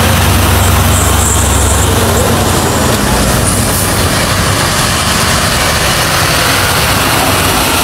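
Heavy fire-service trucks' diesel engines running as the trucks drive slowly past close by. There is a deep engine drone that is strongest for the first couple of seconds as a fire truck goes by. A tanker truck then approaches and passes.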